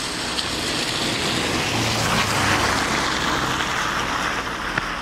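Rushing noise of a passing vehicle with a low hum beneath, swelling about two seconds in and slowly easing off.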